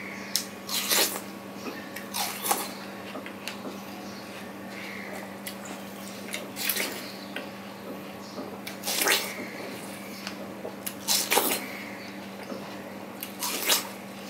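Close-up eating sounds of juicy watermelon: wet bites, slurps and chewing in short bursts every few seconds. A steady low hum runs underneath.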